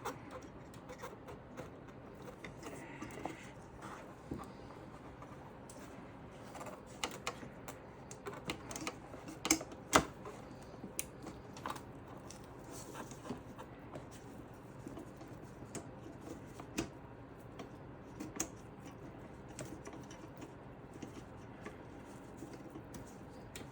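Scattered small clicks and taps of hard plastic and metal computer parts being handled and pressed while fitting them to a motherboard, with the sharpest click about ten seconds in.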